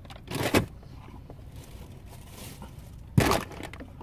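A wet wipe being handled close to the microphone: two brief rustles, one about half a second in and another near the end.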